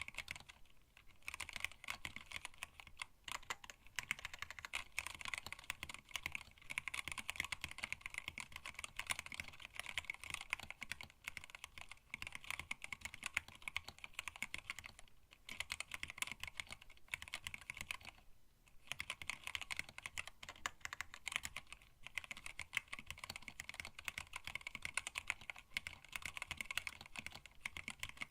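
Continuous fast typing on a hand-wired split mechanical keyboard with Tealios linear switches, blank PBT keycaps and an acrylic case: a steady stream of keystroke clacks, with short pauses about a second in and around fifteen and eighteen seconds in.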